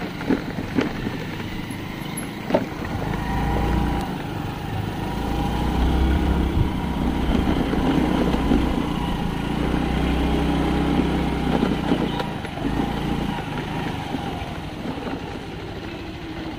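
Motorcycle engine running, growing louder for several seconds in the middle and then easing off, with a few sharp knocks in the first few seconds.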